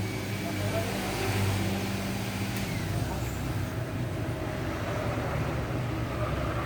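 Steady whooshing hum of a hot-air rework blower running, used to soften the adhesive of a phone's back cover.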